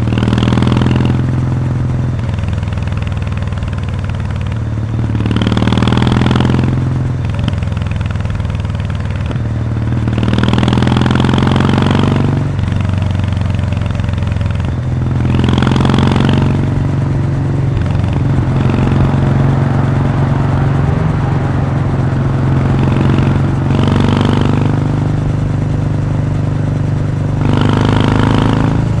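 Kawasaki W800 air-cooled parallel-twin running on the move through its stock muffler with the baffle removed, a loud steady exhaust note. A louder rush swells in every few seconds.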